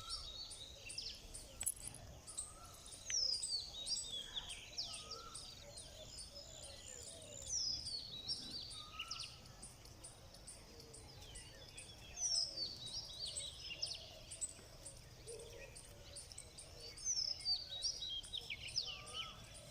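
Wild birds singing outdoors: one bird repeats a quick song phrase that falls in pitch, about every four to five seconds, with softer lower notes from other birds between. Behind it an insect keeps up a steady, high, rapid ticking.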